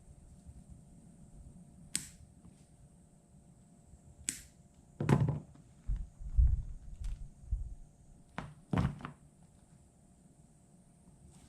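Scattered handling noises: a few sharp clicks and a run of low thumps and clunks around the middle, like objects being picked up and set down on a hard surface, over a faint steady high whine.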